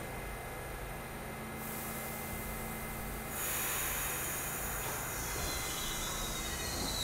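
R68 subway train standing at the platform. Its equipment hums steadily, then from about a second and a half in a hiss of air starts, growing louder and fuller about three seconds in as the brakes release before departure. A faint high whine comes in near the end.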